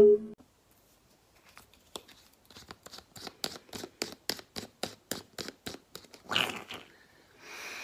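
A quick run of small plastic clicks, evenly spaced and speeding up to about four a second, as the cap of an Air Wick air freshener bottle is pulled up notch by notch to raise its wick. Then two short scraping rustles near the end.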